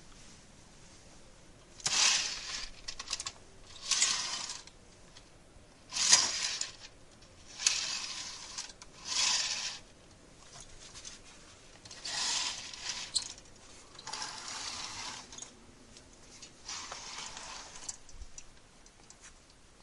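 A hotel window being slid, about eight short scraping rushes, each under a second or so long, a second or two apart, with small clicks within them.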